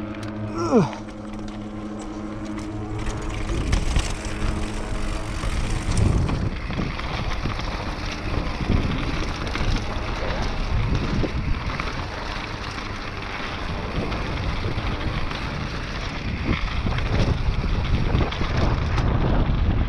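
Mountain bike descending a dirt enduro trail: steady wind rush on the microphone and tyre noise, with scattered knocks and rattles from the bike over bumps, growing louder toward the end.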